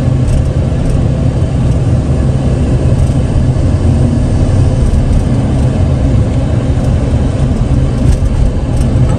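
Steady low rumble of road and engine noise heard from inside a car's cabin while driving.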